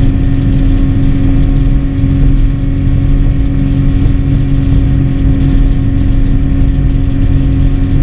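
Skiff's outboard motor running steadily at speed, a constant drone over a low rumble.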